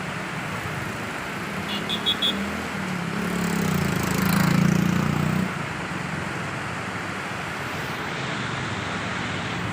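Motor vehicle running with steady road noise, growing louder between about three and five and a half seconds in. A few short high beeps sound about two seconds in.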